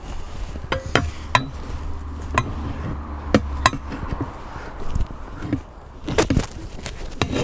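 Steel bar of a Sealey TC960 manual tyre changer clanking against the changer's centre post and the steel wheel rim as the bead of a new tyre is levered on: irregular sharp metal knocks, a few seconds apart, over a low rumble.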